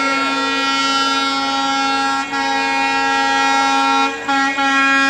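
Diesel locomotive's air horn sounding one long multi-tone blast as the train approaches, briefly broken twice.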